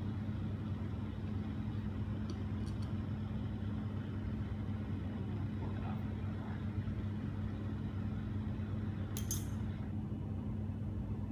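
Natural gas and oxygen bench torch burning with a steady rushing hiss and low hum, with a few light clicks, the clearest about nine seconds in.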